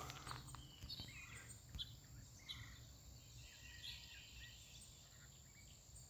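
Near silence: faint rural ambience with a few brief, faint bird chirps scattered through.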